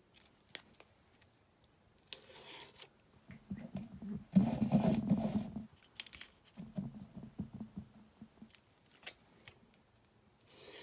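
Craft-table handling noise: hands, a steel ruler and a card rubbing and sliding on a cutting mat, with a few light clicks. The loudest scrape comes about four to five seconds in.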